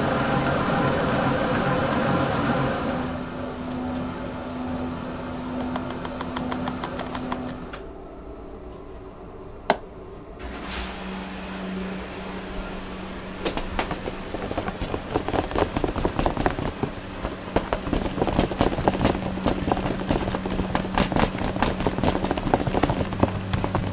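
Commercial planetary mixer whisking egg whites, its motor running steadily, changing note about three seconds in and falling quiet about eight seconds in, with a single click near ten seconds. After that a steady hum continues under quick, irregular scraping of a spatula against a plastic tub as the whipped whites are folded into a paste.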